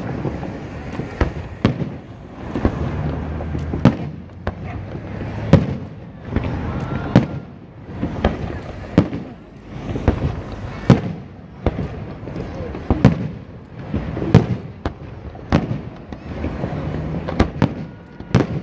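Aerial firework shells bursting in a continuous display, sharp bangs coming about once a second, each trailing off briefly.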